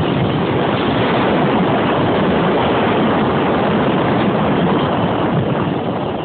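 Honda VFR800Fi (RC46) V4 motorcycle engine running at speed, mixed with heavy wind rush on a bike-mounted camera's microphone. The level starts to fall about a second before the end as the bike eases off.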